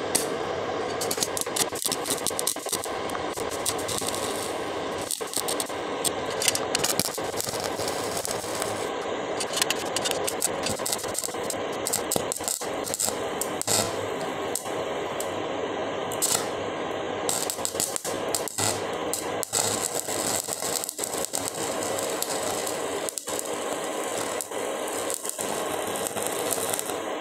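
Stick-welding arc from a Shakti Technology MMA-200G inverter welder set to about 200 A, burning a 3.15 mm electrode: a steady crackle and sputter with frequent sharp pops.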